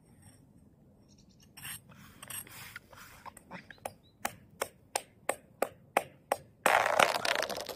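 Thin first ice being struck: evenly spaced sharp knocks, about three a second, starting a little before halfway, then a louder rush of noise lasting about a second near the end.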